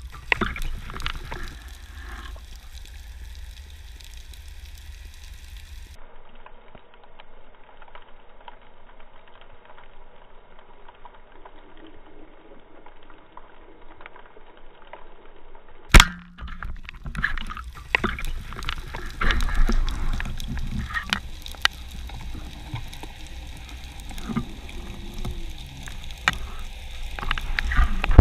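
Water gurgling and sloshing with scattered small clicks, as heard underwater, with a single sharp crack about halfway through.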